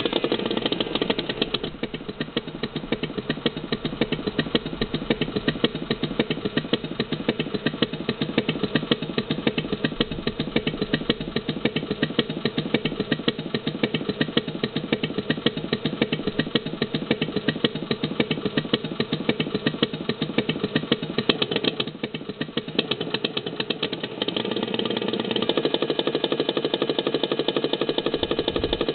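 Electronic sound module playing a recorded Harley-Davidson Panhead V-twin engine sound through a small speaker: a steady, evenly pulsing idle. It is louder at the start and grows louder again about three-quarters of the way through.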